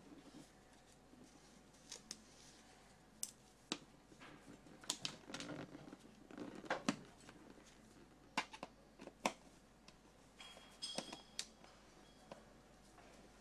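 Irregular sharp clicks and taps of hard plastic, with soft rubbing between them, as gloved hands handle a painted racing helmet and work at its visor pivot.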